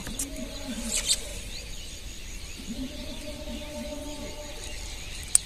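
Fish splashing and slapping in a plastic bucket of water as hands work among them, with a short splash about a second in and a sharp slap near the end. A low call repeats in short groups in the background.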